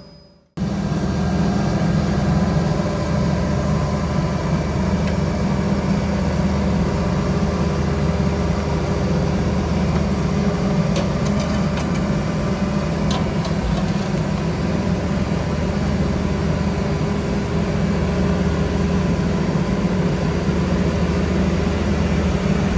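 Heavy diesel machinery running steadily: an asphalt paver laying tarmac while a tipper truck feeds it, with a constant low engine hum.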